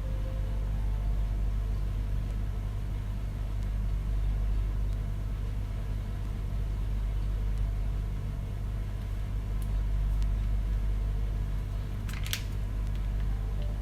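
Microwave oven running: a steady low electrical hum, with a brief clatter near the end.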